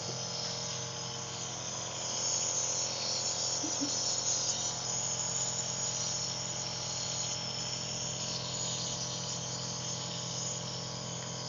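Home nebulizer's compressor running, a steady buzzing hum with a high hiss of medicated mist.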